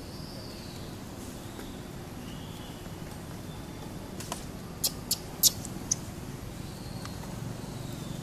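Outdoor background with a steady low rumble, and a quick run of about five sharp clicks or crackles around the middle. Faint high chirps come and go.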